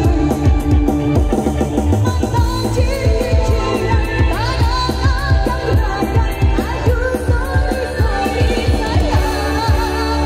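Kecimol, Lombok street dangdut, played live through a large outdoor sound system: loud, bass-heavy music with a fast, dense drum beat and singing.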